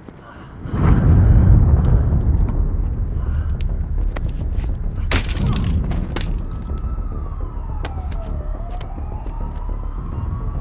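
Film soundtrack: a deep, loud rumble swells in about a second in, a brief noisy rush comes around the middle, then a police siren wails, its pitch sliding down and back up.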